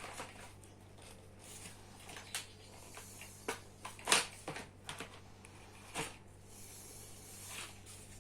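Baby walker parts being handled and fitted together during assembly: a few separate sharp clicks and knocks, the loudest about four seconds in, over a steady low hum.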